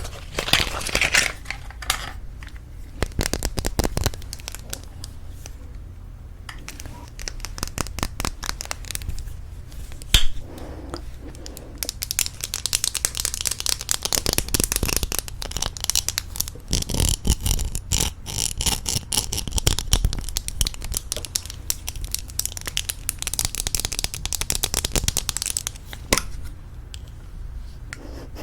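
Close-miked tapping and handling of lipstick cases: quick taps and clicks, turning into a long, fast run of taps in the second half, with some crinkling.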